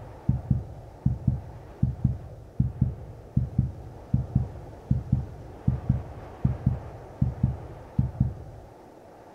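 Heartbeat sound effect: low double thumps in a steady lub-dub, a little more than one beat a second, over a faint low drone. The beats stop about a second before the end.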